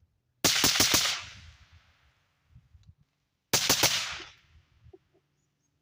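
Suppressed 13.9-inch mid-length .223 carbine fitted with a full-size YHM Turbo T2 suppressor, fired in two quick strings of four or five shots about three seconds apart, each string trailing off in a short echo. The shots come across as a little loud, with some crack left.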